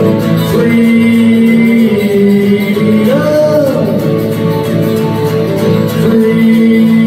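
A man singing long held notes over a strummed acoustic guitar.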